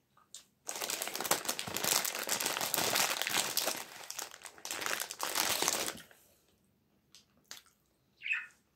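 Thin plastic bag crinkling and rustling as a hand rummages inside it for about five seconds, then a few faint clicks.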